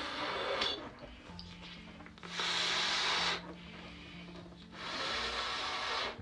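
Latex balloon being blown up by mouth: three long puffs of breath forced into it, each about a second, with quieter pauses between.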